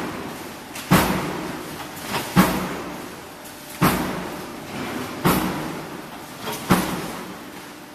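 Press of an automatic sheet-metal blanking line cycling, with a sharp metal impact at each stroke about every one and a half seconds, five in all. Each impact trails off in a ringing tail, and some are preceded by a lighter knock.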